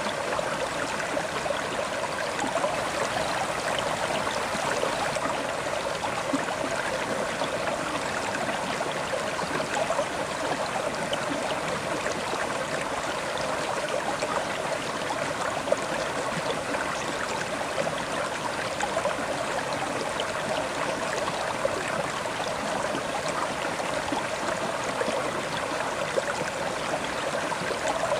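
River water flowing and babbling steadily over its bed, an even rushing noise with small splashes and gurgles.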